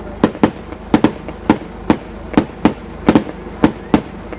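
Fireworks going off in a rapid, irregular series of sharp bangs, about three a second, each with a short echoing tail.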